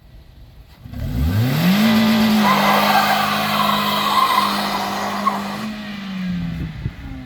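Car engine revving up quickly and holding at high revs for several seconds with tyres squealing, then dropping off near the end.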